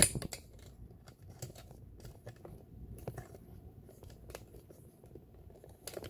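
Thread being handled and drawn through a sewing machine's thread guides: a sharp click at the start, then faint scattered ticks and rustles.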